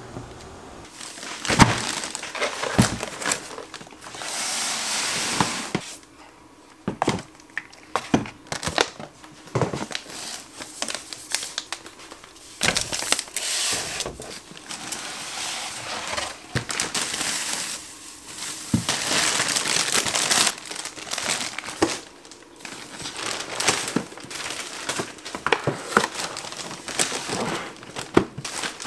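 Plastic grocery bags and packaging crinkling and rustling as groceries are unpacked, with knocks and clicks of items being set down on a shelf and countertop.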